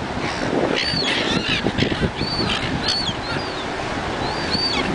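A flock of silver gulls calling over and over in short, arched cries.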